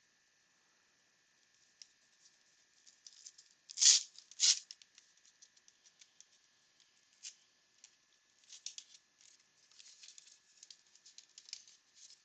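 A 1989 Upper Deck baseball card pack being torn open, with two sharp rips about four seconds in, followed by light scratchy ticks of the cards being slid and shuffled in the hands.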